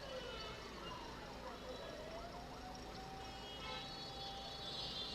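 A siren wailing over steady background traffic and machinery noise. Its pitch slides down near the start and climbs slowly back up over the next few seconds.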